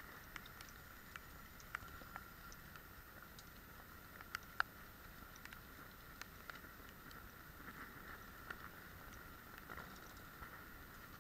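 Faint, muffled rain ambience: a steady hiss with irregular sharp taps of falling drops.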